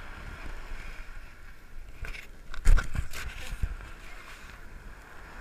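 A quick cluster of several loud knocks and scrapes a little under three seconds in, over a steady background hiss.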